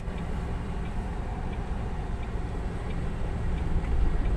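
A truck's engine running steadily, heard from inside the cab as a low rumble, growing a little louder near the end.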